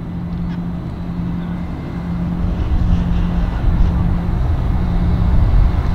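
A vehicle engine idling, a steady low hum with a rumble that grows louder toward the end.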